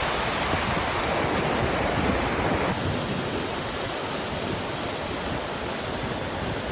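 Steady rushing roar of a waterfall's whitewater. The hiss drops slightly about three seconds in.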